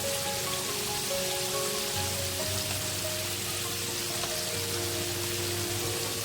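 Flour-and-cornmeal-coated chicken quarters deep-frying in hot oil: a steady, dense sizzle and crackle. Background music with a slow stepping melody and a bass line plays over it.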